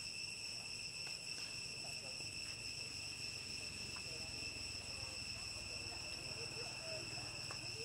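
Steady, high-pitched insect chorus that holds several even tones without a break, with faint short chirping calls underneath.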